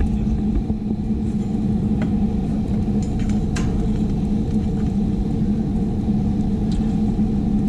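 Steady low drone of an engine running, with a constant hum and a few light clicks about two seconds and three and a half seconds in.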